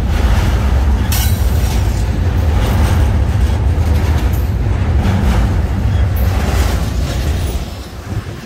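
Double-stack intermodal container well cars rolling past close by: a steady low rumble of steel wheels on the rails with occasional clacks, dropping away near the end.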